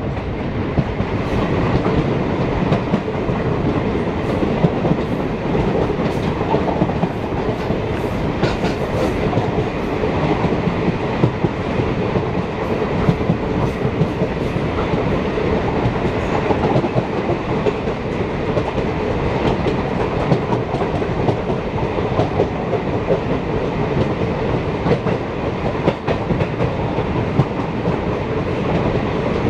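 Running noise of an Indian Railways passenger coach heard from its open door: a steady rumble of wheels on rail with scattered clicks over rail joints, passing close by a line of open freight wagons.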